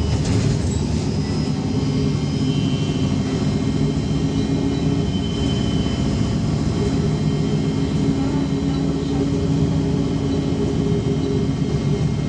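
Cabin noise of a VMZ-5298.01 trolleybus in motion: a steady low hum from the electric drive over road and tyre noise, with faint high whines that come and go.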